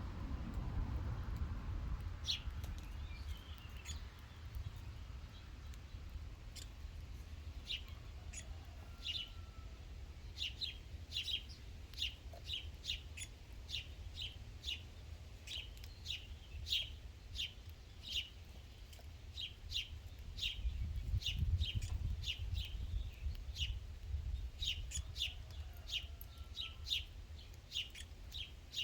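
A small songbird giving short, sharp, high call notes over and over, about one to two a second, over a low steady rumble.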